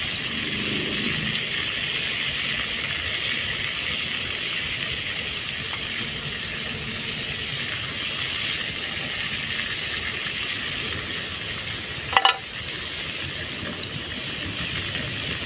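Battered banana fritters sizzling steadily as they deep-fry in a small pot of hot oil over a wood fire. A short, sharp pitched sound cuts in once about twelve seconds in.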